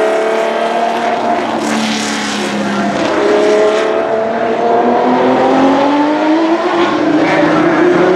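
1972 Tecno PA 123/3 Formula One car's 3-litre, 180° V12 (flat-twelve) racing engine running hard as the car goes past. From about three seconds in, the revs climb steadily as it accelerates.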